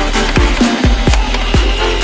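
Electronic background music with a deep kick drum beating about twice a second.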